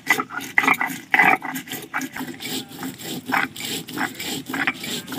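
Stone roller (nora) scraping back and forth over a flat grinding stone (shil), wet-grinding cumin, mustard and nigella seeds into paste. Short rough strokes, about three a second.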